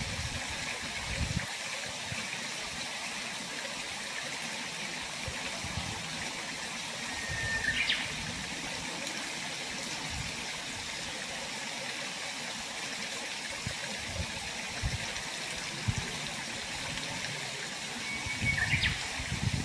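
Fast water rushing steadily down a concrete outflow channel from a reservoir. Two short high notes break through, one about eight seconds in and one near the end.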